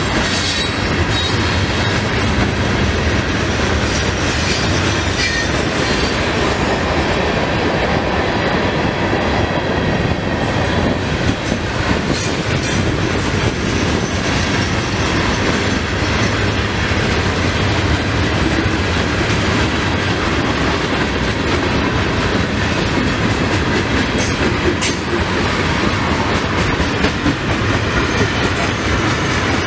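Loaded freight cars rolling past at speed: a steady rumble of steel wheels on rail, with clickety-clack over the rail joints and a few sharp clicks.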